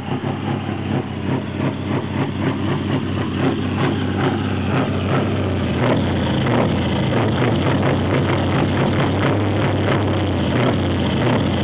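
Scania R500's 16-litre V8 diesel idling through straight, twin side-exit exhaust pipes, a deep steady rumble. It grows louder about a third of the way in, then holds steady.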